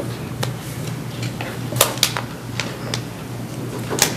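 A few scattered light clicks and taps at uneven intervals, over a steady low hum.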